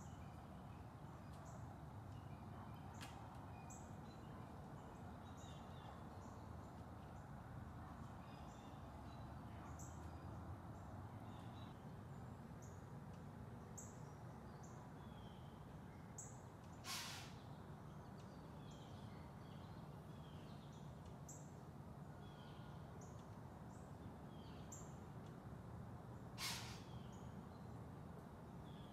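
Quiet woodland background with small birds chirping in short scattered calls throughout. Two brief rustles stand out, one about halfway through and another near the end.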